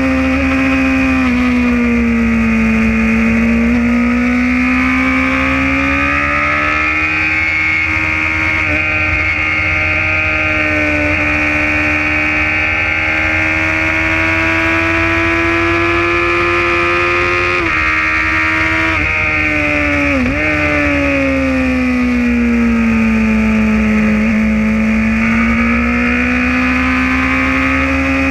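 Motorcycle engine at speed on a racetrack, heard from the bike itself. The note dips early, then climbs slowly for a long stretch, breaks briefly twice about two-thirds through, falls again and rises near the end.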